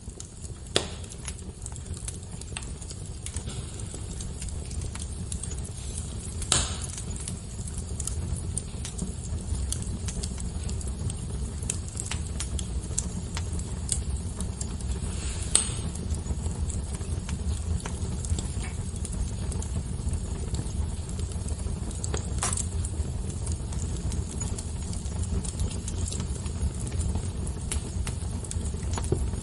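Wood fire burning with a steady low rumble and scattered sharp crackles and pops, a few louder snaps standing out, about a second, six and a half, fifteen and twenty-two seconds in.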